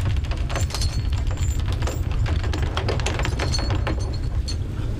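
Steel trawl chains rattling and clinking as they run out over the boat's rail while the trawl is set, with many irregular sharp clinks. Under them, the steady low rumble of the trawler's engine.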